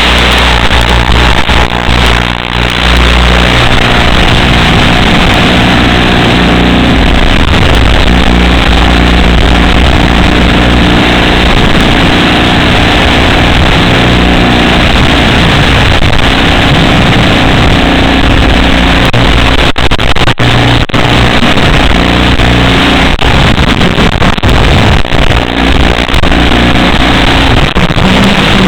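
FPV drone in flight: the motors and propellers buzz loudly and unsteadily, their pitch shifting with the throttle, under a constant rush of noise.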